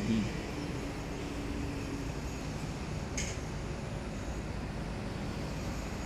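Steady low outdoor background rumble, with one brief high chirp about three seconds in.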